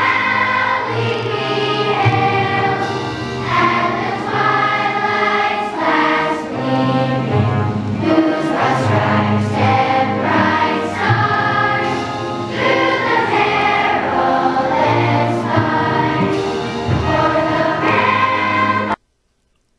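Third-grade children's choir singing a song together. It cuts off suddenly near the end.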